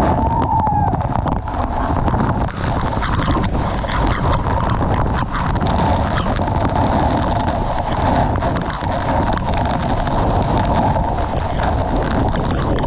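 Wli Falls, a tall waterfall, pouring steadily into its pool with wind and spray buffeting the microphone: a loud, unbroken rush of water noise.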